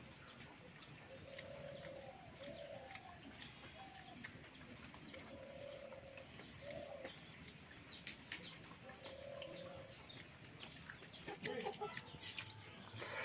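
A dove cooing faintly, short low coos repeated every second or two, with a few light clicks between them.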